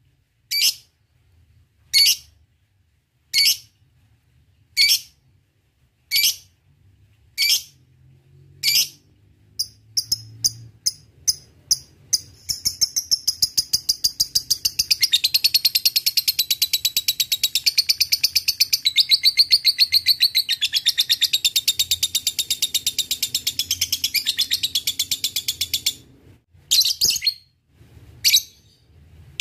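Lovebird giving sharp single chirps about every second and a half (the "ngetik" ticking call). The chirps speed up around nine seconds in, then break into a long unbroken rapid chattering trill ("ngekek") lasting about fourteen seconds, and return to single chirps near the end.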